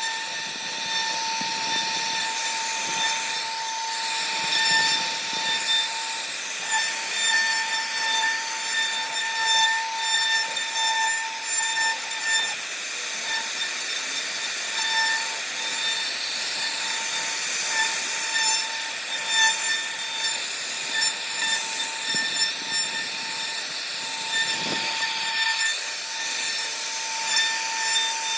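CNC router spindle carving wood: a steady high whine with the hiss of the bit cutting, swelling and easing irregularly as the cutter works along the pattern.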